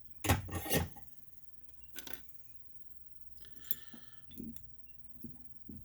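Knocks and small metallic clinks of tools and parts being handled on a workbench, loudest in a short clatter near the start, then a few scattered lighter clicks.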